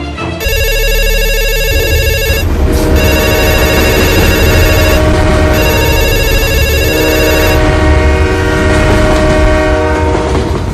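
A rapidly trilling, bell-like ring in three bursts of about two seconds each, over a loud steady low rumble; lower held tones carry on after the last burst.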